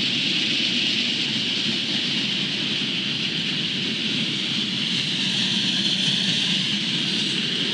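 Freight train's covered hopper cars rolling past, a steady rumble with a hiss of steel wheels on rail that holds even throughout, heard through a trackside webcam microphone.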